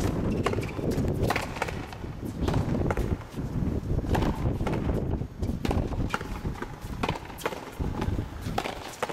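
Frontenis rally: sharp, irregular knocks as the rubber ball is struck by racquets and rebounds off the front wall, several times over a steady low rumble.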